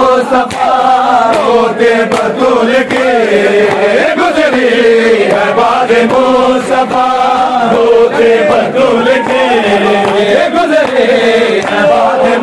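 Men chanting a Shia noha in unison, many voices together, with sharp slaps of hands beating on chests (matam) breaking through the chant.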